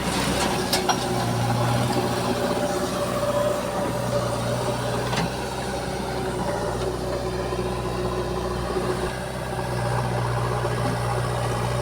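JCB backhoe loader's diesel engine running steadily, with a couple of short sharp knocks over it.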